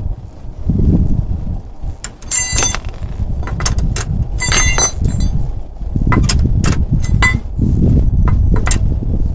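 Metal parts clinking and clanking against each other in a string of sharp knocks, a couple of them ringing briefly. Wind rumbles on the microphone underneath.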